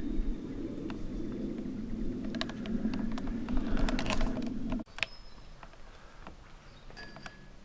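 A steady low rumble with scattered clicks and taps, which cuts off abruptly about five seconds in. What follows is quieter forest ambience with a few short, high bird chirps.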